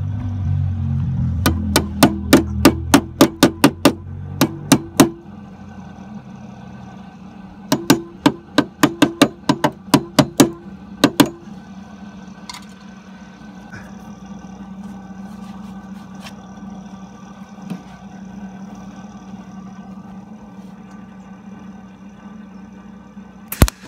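Two runs of sharp knocks, about three a second, each lasting three or four seconds, after a low rumble fades. Then a steady hum, and near the end a MIG welder's arc starts crackling as welds go onto the van's steel sill.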